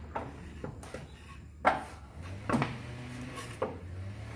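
Wooden blocks knocking as they are handled and set down, about six separate knocks. The loudest comes about one and a half seconds in.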